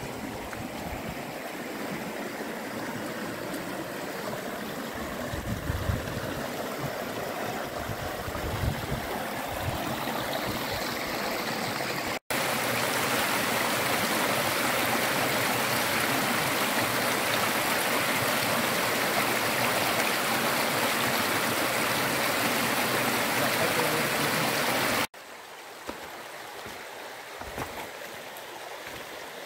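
Shallow stream rushing over stones and rock, a steady noisy rush of water. About twelve seconds in it becomes a louder, fuller rush, and about twenty-five seconds in it drops back to a quieter flow.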